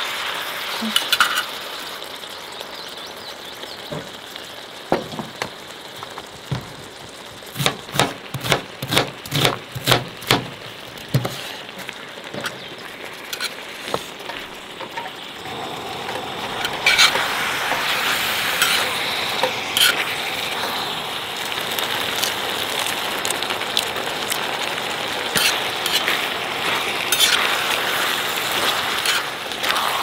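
Pork belly and marinated webfoot octopus frying on a round griddle plate, turned with metal tongs that tap and clink against the plate. Near the middle comes a run of about a dozen quick taps. From about halfway the sizzling grows louder and stays steady.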